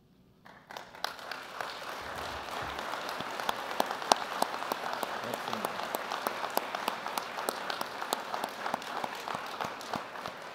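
Congregation applauding: clapping begins about half a second in, holds steady, and thins out near the end.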